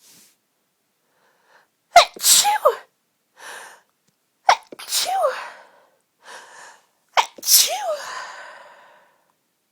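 A woman sneezing three times in a row, about two and a half seconds apart, each a sharp catch followed by a voiced falling 'choo', with a short breath drawn in between sneezes.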